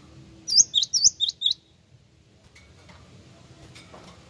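Great tit (gelatik wingko) singing: a quick run of about six sharp, high, clipped notes, lasting about a second, starting about half a second in.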